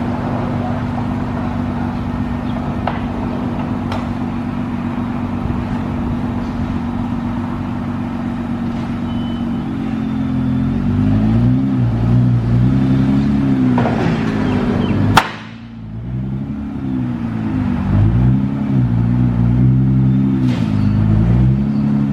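A vehicle engine running with a steady low drone, then its pitch rising and falling over and over from about halfway on. A single sharp click about two-thirds of the way through.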